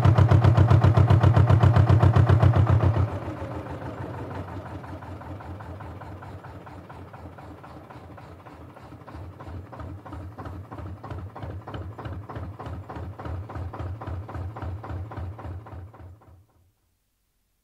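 Canal narrowboat's diesel engine heard on board, running loud at speed, then throttled back sharply about three seconds in to a quieter, steady chug. The chug picks up a little in the second half before fading out near the end.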